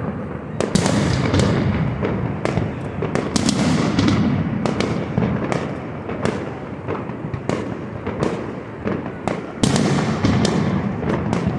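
Fireworks display going off: many sharp bangs and cracks in quick, irregular succession over a continuous low rumble of booms.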